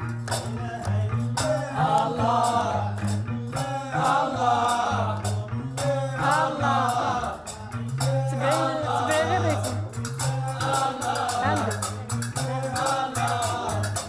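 Lively group music: voices singing a melody over a hand drum and clacking hand percussion keeping a steady beat, with low bass notes underneath.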